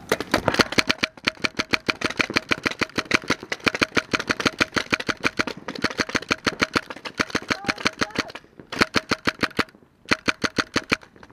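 Paintball marker firing rapid strings of shots, many per second, with two brief pauses near the end.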